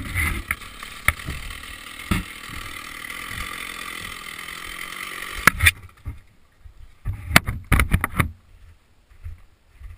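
Chainsaw idling steadily after a cut. It cuts off abruptly about five and a half seconds in. A few sharp knocks and handling clicks follow, with low rumbles on the microphone.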